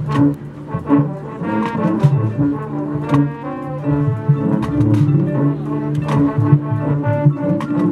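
High school marching band playing its field show: brass holding and moving through sustained chords, punctuated by sharp drum and mallet percussion hits.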